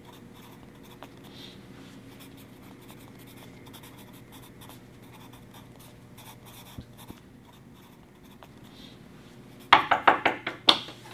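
Pencil scratching on a pad of paper as someone writes, over a faint steady room hum. Near the end comes a quick run of loud, sharp knocks.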